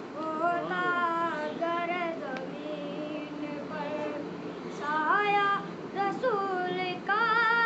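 A boy singing a naat solo, with no instruments, in long phrases of held, wavering notes.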